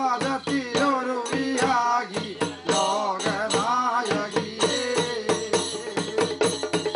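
Male Tholpavakoothu performers chanting a verse in a sung, mantra-like style, with one voice leading into a microphone. A quick, steady percussion beat of about four strokes a second runs under the voices.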